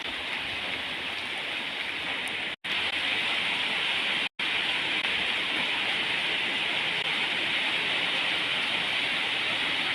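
Steady hissing noise, louder from about three seconds in, cutting out completely twice for a split second.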